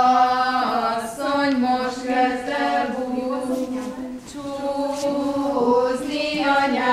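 Women's voices singing a slow, chant-like folk melody together, with long held notes.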